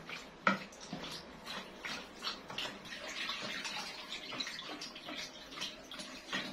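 Warm milk and water with yeast and sugar being stirred in a plastic mixing bowl with a spatula: irregular sloshing with many light clicks of the spatula against the bowl.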